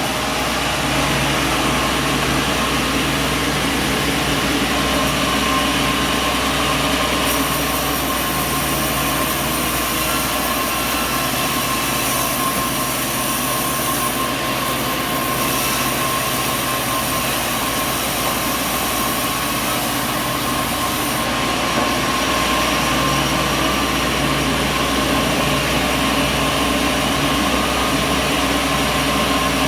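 Sawmill machinery running steadily, a dense, even mechanical noise with several constant hums.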